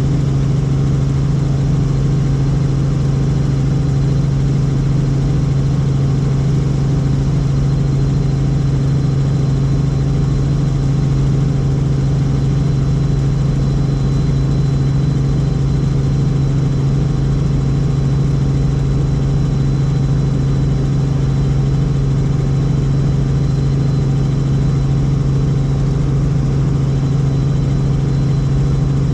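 Helicopter in flight: a steady, loud drone of rotors and turbine engine with a deep hum and a faint high whine, unchanging throughout.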